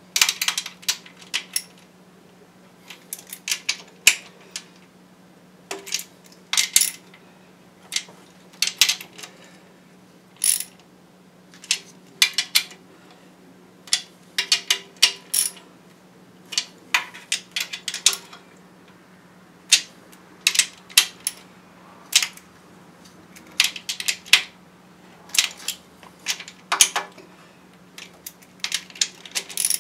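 Metal hand tools and small engine parts clinking and clicking in irregular clusters during hands-on reassembly work on a VW 2.0L four-cylinder engine. A steady low hum runs underneath.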